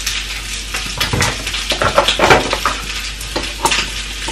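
Food frying in a pan on a gas hob: a steady sizzle with irregular crackles and pops.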